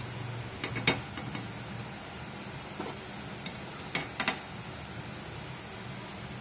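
Scattered sharp taps and clicks of a utensil against a paniyaram pan as the cooked ponganalu are lifted out, a few near the start and a small cluster around four seconds in, over a low steady hum.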